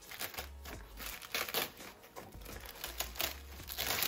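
Water-soluble embroidery stabilizer film crinkling and rustling in a few separate bursts as hands pull at it and handle it in the hoop.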